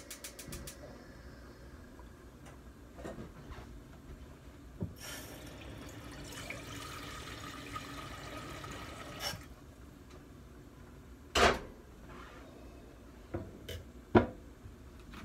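Kitchen faucet running into a stainless steel pot for about four seconds as the pot fills. Then two sharp clunks of cookware handled on the stovetop, the second the loudest, a few seconds apart.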